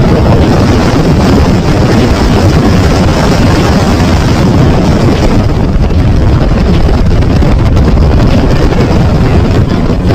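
Loud, steady rush of wind on a phone microphone mixed with engine noise aboard a fast-moving motorboat, heaviest in the low end.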